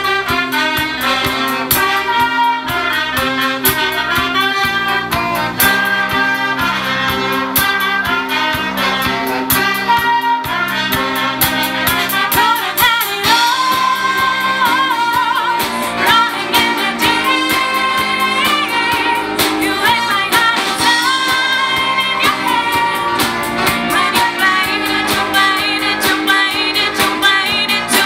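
School orchestra playing live, with flutes, clarinet and violin, and a young woman singing over the band.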